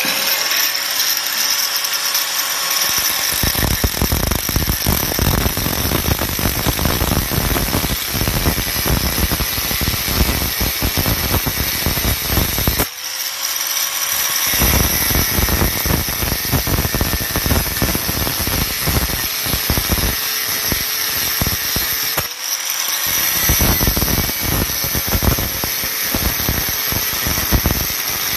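Angle grinder with a thin 107 x 1.2 mm abrasive metal cutting wheel cutting through a 16 mm solid stainless steel rod. The motor whines steadily while the wheel grinds into the steel with a harsh rasp. About 13 seconds in, and again about 22 seconds in, the wheel comes off the rod briefly and the motor spins up free before it bites again.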